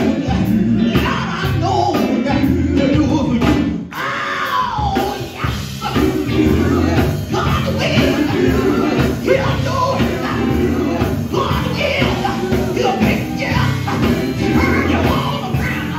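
Live gospel band performing: electric guitars and bass played through amplifiers, with a lead singer singing into a handheld microphone. About four seconds in, the sound briefly dips, then a falling vocal glide follows.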